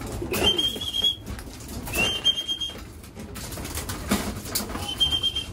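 Racing pigeons moving about with wing flaps and sharp clicks. Three high, steady peeps come near the start, about two seconds in, and near the end.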